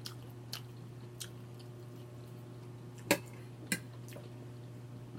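A person chewing food with their mouth open: wet smacking clicks every half second or so, the loudest about three seconds in, over a steady low hum.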